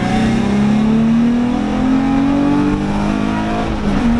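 Infiniti G35 coupe's VQ V6 engine pulling under acceleration, heard from inside the cabin; its note climbs steadily in pitch. It is a test pull on the freshly installed Walbro 485 fuel pump.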